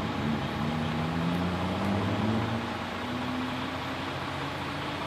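Vehicle engines idling steadily, a low hum that wavers slightly in pitch over a constant rumble.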